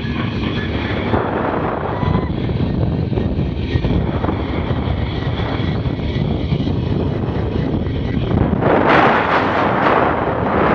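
Wind rushing over a head-mounted action camera's microphone during a zip line descent at about 40 mph, with the trolley running along the steel cable. The rush swells louder near the end.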